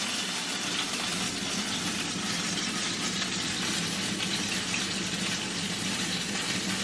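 Oil in a hot frying pan sizzling steadily, an even hiss with a faint low hum underneath.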